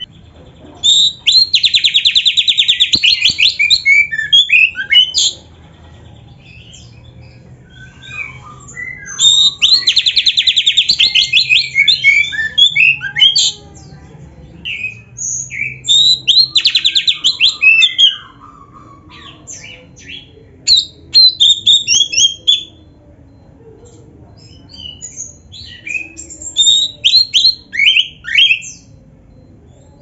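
Oriental magpie-robin (kacer) singing in five loud bouts of a few seconds each, separated by short pauses. Each bout opens with a fast, buzzy trill and runs on into varied high whistles and chattering notes.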